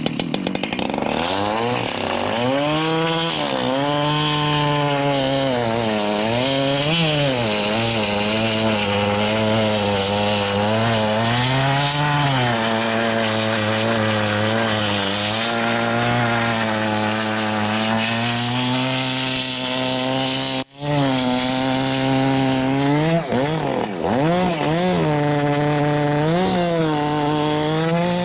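Large chainsaw with a 42-inch bar running at full throttle through a big log, its engine pitch sagging under load and picking back up several times as it cuts.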